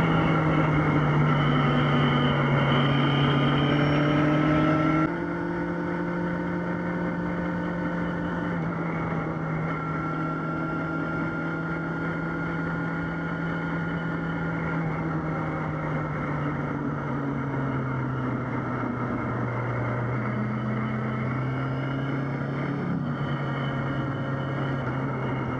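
Yamaha XJ6 inline-four motorcycle engine running at steady riding revs, with wind and road noise. The overall level drops suddenly about five seconds in, and the engine note eases lower about two-thirds of the way through, as the revs come down.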